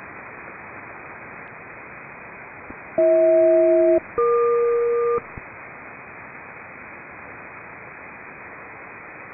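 HF aircraft SELCAL signal heard over upper-sideband receiver static: two one-second bursts of two steady tones each, a short gap between them, starting about three seconds in, the first pair lower and the second higher. It is a ground station's selective call, sent as a SELCAL check, to alert an aircraft's radio.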